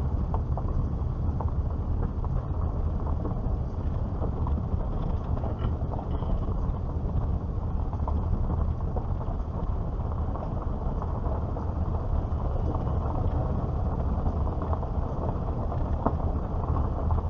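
A car driving slowly over a rough, worn road, heard from inside the car: a steady low rumble of tyre and engine noise with scattered small ticks and rattles.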